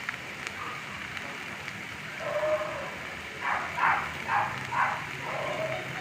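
Corned beef sizzling steadily in butter in a frying pan. From about two seconds in, a series of about five short pitched calls sounds in the background, louder than the sizzle.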